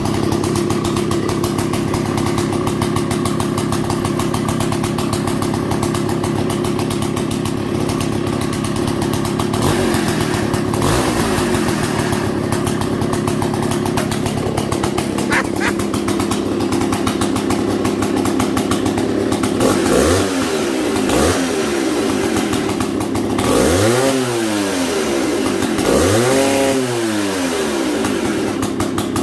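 Large vintage gear-drive chainsaw engine idling steadily, with a low, even note likened to a snowmobile. About twenty seconds in, its throttle is blipped four or five times, the engine rising in pitch and falling back each time.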